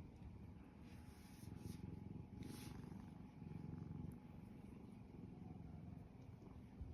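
Domestic cat purring contentedly: a faint, continuous low rumble that swells and eases in a slow cycle.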